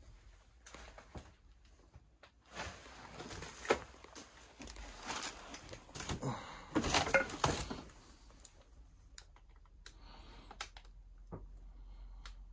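Rustling, crackling and scattered light clicks and knocks of someone moving about among clutter, loudest from about three to eight seconds in.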